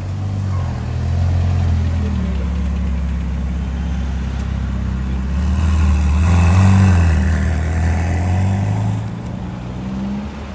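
Car engine running with a deep, low note, its pitch stepping up and down as it revs. A louder rush of a vehicle passing close builds about five seconds in, peaks around seven seconds and fades again.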